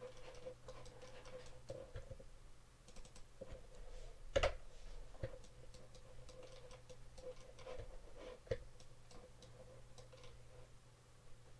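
Scattered light clicks of a computer mouse, with a sharper click about four seconds in and another near the end, as edges are picked in the 3D software. A faint steady hum runs underneath.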